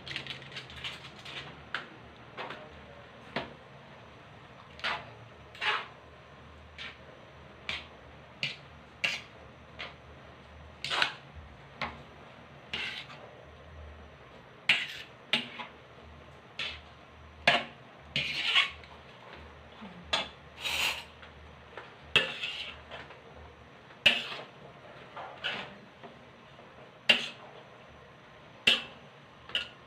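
Cooking utensil clinking and scraping against a large metal wok while noodles are tossed and mixed, in irregular strokes roughly one or two a second.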